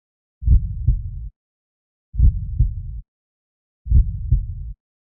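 Heartbeat sound effect: deep double thumps, lub-dub, three pairs evenly spaced about 1.7 seconds apart, each pair followed by a short low rumble that stops abruptly.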